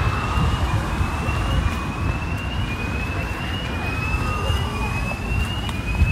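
Emergency-vehicle siren sounding a repeated two-tone pattern, each note about a second long and rising slightly, over steady city traffic rumble.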